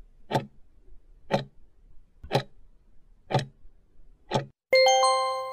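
Countdown clock sound effect: five ticks, one a second, then a bright chime of several ringing tones about 4.7 seconds in, marking the end of the answer time.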